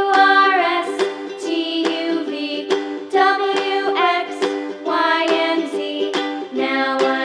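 Background music: a tune of plucked notes at a steady beat.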